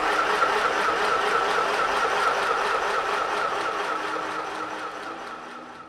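Akiara mini sewing machine's small electric motor switched on and running at steady speed to wind thread onto the bobbin, a high whir that starts suddenly. It dies away over the last second or so.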